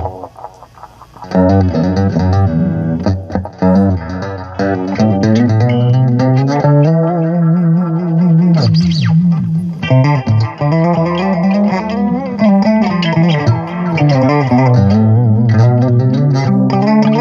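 Electric guitar played through a Line 6 Spider IV 15-watt practice amp, with runs of single notes and chords. The playing drops away briefly in the first second, then goes on without a break.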